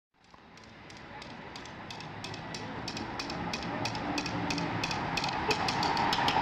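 Bucket drummer's sticks clicking sharply in a steady, quickening rhythm, fading in over a noisy background just before the full drumming starts.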